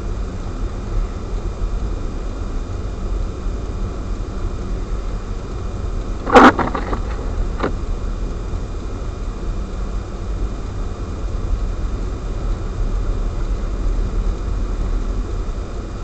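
Steady low rumble of a car driving on a snow-covered road, heard from a dashcam inside the cabin. A sudden short knock stands out about six seconds in, followed by a fainter click a second later.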